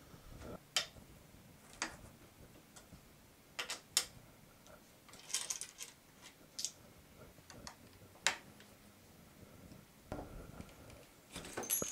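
Scattered light clicks and ticks of small metal bicycle parts being handled: the stem's headset top cap and its bolt being taken off, then a screwdriver working in the steerer tube.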